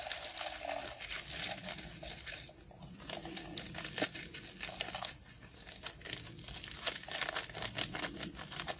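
Dehydrated navy beans pattering and rattling out of a crinkling plastic zip bag into a Jetboil cooking cup, in many small irregular clicks. A steady high insect chorus runs underneath.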